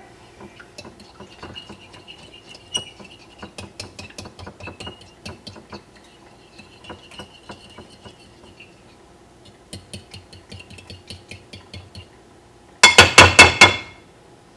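A fork clinking against a glass dish as eggs and creamer are beaten, in scattered taps. Near the end comes a quick, loud run of about eight strokes.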